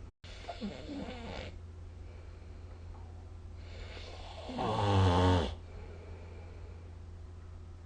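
A person snoring in sleep: a shorter, quieter snore about half a second in, then a louder, longer snore from about three and a half to five and a half seconds in, over a steady low hum.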